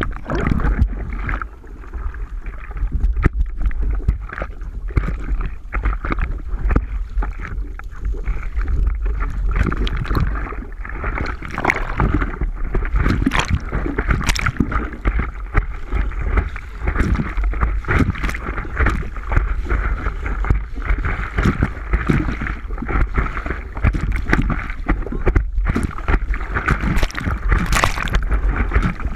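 Wind buffeting the microphone in a steady low rumble, over water splashing and sloshing, with many short sharp knocks and splashes.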